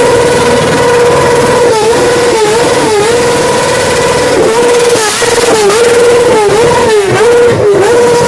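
Motorcycle with a modified silencer, its exhaust giving a loud, steady high tone that dips briefly in pitch again and again over the last six seconds.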